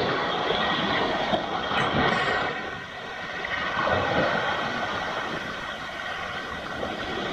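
Sea waves breaking and washing over a rocky shore: a continuous rush of surf that eases about three seconds in, then builds again as the next wave comes in.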